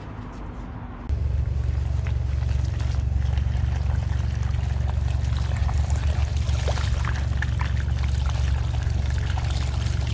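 Hydrojetter starting up about a second in: a steady low drone from the jetter, with water pouring and splashing as a grease-clogged kitchen sink drain line is jetted through its cleanout.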